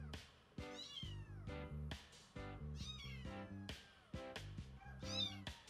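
Black kitten meowing, three high mews that fall in pitch, over background music.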